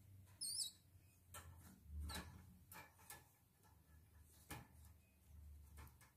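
Near silence with scattered faint clicks and rustles as a hand strokes a baby otter inside a wire crate. A brief high warbling squeak comes about half a second in.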